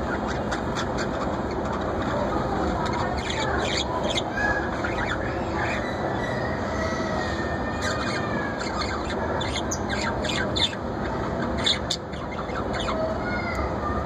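Budgerigars chirping and chattering: many short high chirps and warbled gliding calls, over a steady low rumbling noise.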